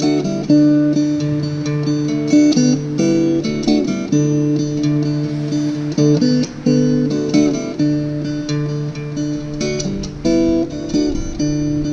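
Acoustic guitar strummed in a steady rhythm, an instrumental break between sung verses of a live song.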